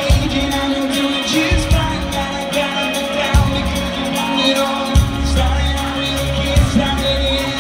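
Live rock band playing amplified guitars, bass and drums, with a singer, heard from within the audience.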